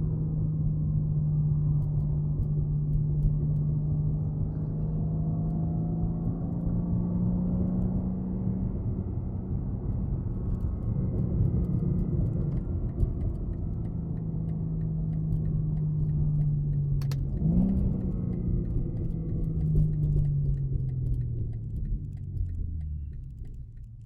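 BMW G80 M3's twin-turbo straight-six, fitted with aftermarket downpipes and a titanium M Performance exhaust, droning steadily under road rumble while driving. The engine note rises briefly about 17 seconds in, then falls away and quietens over the last few seconds as the car slows.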